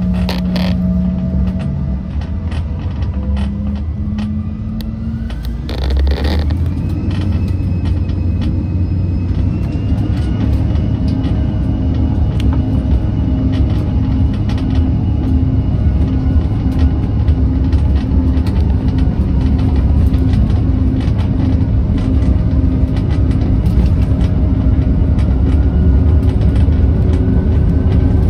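Airliner's jet engines heard from inside the cabin, spooling up for the takeoff roll: a whine rises in pitch over the first ten seconds or so, then holds steady over a heavy rumble that grows louder as the plane gathers speed down the runway.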